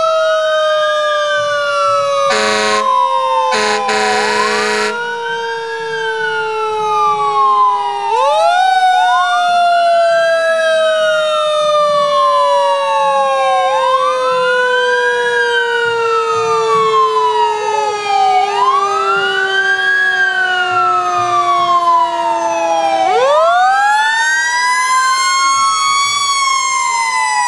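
Fire truck sirens wailing, two at once: one slowly sinking in pitch and sweeping back up twice, the other rising and falling about every five seconds. Two blasts of the truck's air horn come a few seconds in.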